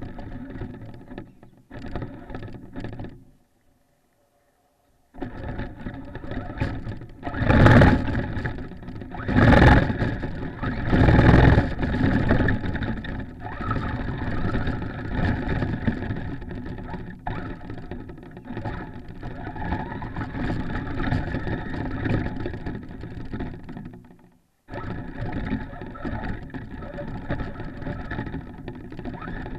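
Onboard sound of a Traxxas Stampede RC truck driving through snow: its motor and drivetrain whine over the rumble of the chassis and tyres in the snow. It comes in two short bursts at first, then runs on after a pause of about two seconds, with three loud surges about eight, ten and eleven seconds in.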